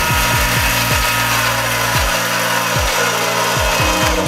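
Variable-speed mini lathe running: its motor and headstock gears give a steady whine over a hiss, and the whine drops slightly in pitch about a second in as the speed knob is turned down. A music track with a deep, falling drum beat plays underneath.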